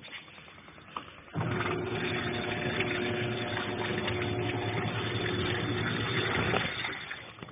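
Consul Ideale 4 kg washing machine's motor starting about a second and a half in and running steadily with a humming drone for about five seconds, then stopping: a wash agitation stroke turning the drum. A faint regular ticking comes before it starts.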